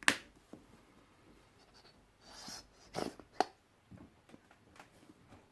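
Small handling noises from a plastic bottle of polishing compound and a foam applicator pad: a sharp click at the start, a short hiss a little over two seconds in, then two more clicks about three seconds in, as compound is dispensed onto the pad.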